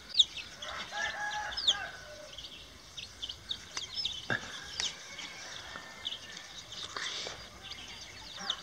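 Chickens clucking, with small birds chirping in quick short calls.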